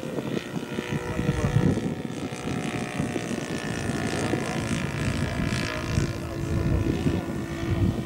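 Laser 150 four-stroke glow engine of a 1:6-scale radio-controlled Hawker Hurricane model in flight, a steady propeller drone whose pitch shifts a little as the plane passes.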